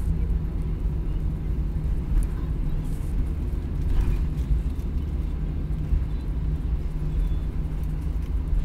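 Cabin noise of an Airbus A320-200 rolling along the runway after landing: a steady low rumble with a faint hum running through it.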